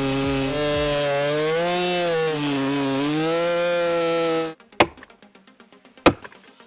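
Chainsaw running at high revs, its pitch dipping and rising as it works the cut. It stops abruptly about four and a half seconds in, and two sharp knocks follow.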